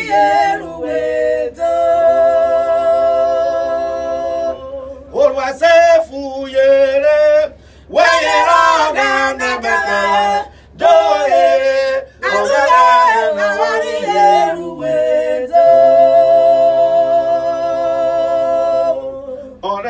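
Unaccompanied gospel singing by a man and two women, with long held notes near the start and again near the end, broken by short pauses between lines.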